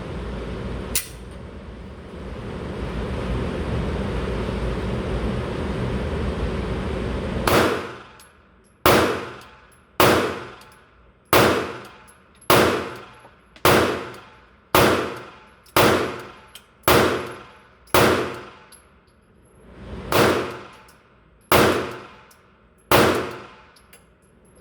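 Glock 45 Gen 5 9mm pistol fired slow-fire: about thirteen single shots roughly a second apart, each a sharp crack with a ringing tail, starting several seconds in after steady background noise.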